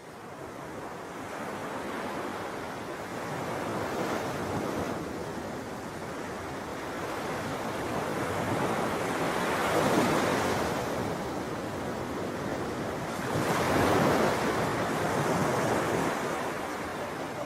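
Ocean surf breaking on a shore, with wind on the microphone. The waves swell loudest about ten and fourteen seconds in.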